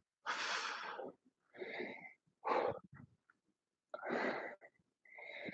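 A man breathing hard from exertion: about five loud, rasping breaths, roughly a second apart.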